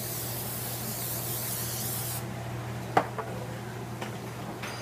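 Pam cooking spray hissing steadily from its aerosol can, cutting off sharply about two seconds in; a single sharp knock follows about a second later.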